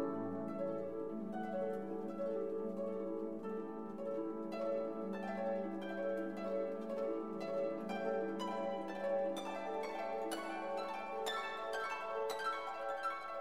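Background instrumental music: held tones, with a run of quick plucked-sounding notes that grows busier about four seconds in.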